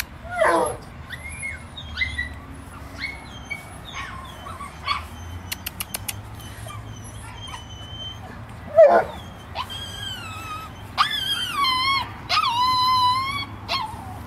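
Dogs whining and yipping in short, high, falling calls, with longer wavering whines from about ten seconds in.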